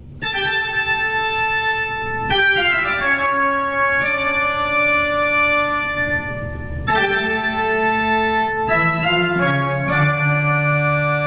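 Intro music of sustained organ chords, held for a few seconds each before shifting to new ones.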